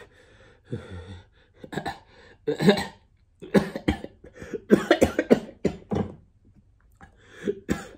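A man coughing again and again, with some throat clearing, while eating extra-spicy miso cup ramen: a string of short, sharp coughs over several seconds and one more near the end.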